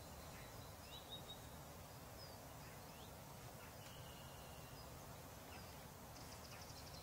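Near silence: faint rural outdoor ambience with a few soft, scattered bird chirps and a short high trill near the end.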